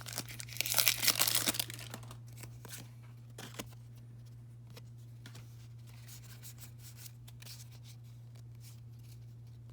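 Pokémon card pack wrapper being torn open and crinkled for about the first two seconds, followed by a few faint rustles and then only a faint steady low hum.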